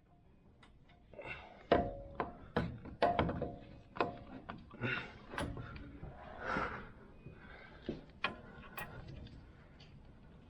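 Metal hand tools and steering parts knocking and clanking during pitman arm work: a dozen or so irregular sharp clanks, some ringing briefly, with a short rushing noise about six and a half seconds in.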